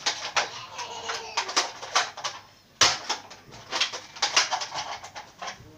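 Nerf Spectre toy dart pistol being primed and fired several times in a row: a string of sharp plastic clicks and snaps, a few a second with short pauses, the loudest a little under three seconds in.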